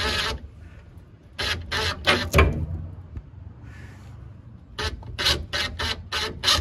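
A run of short rasping, scraping strokes: a cluster about a second and a half in, then a steady series of about three a second near the end.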